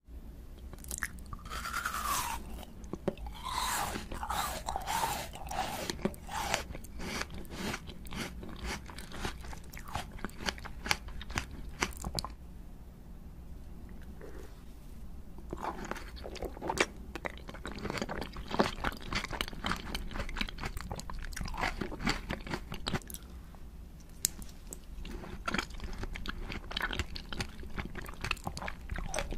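Close-miked eating: repeated sharp crunches of biting through a candied strawberry's hard sugar shell and other sweets, with chewing between bites. The crunching thins out for a few seconds around the middle, then picks up again.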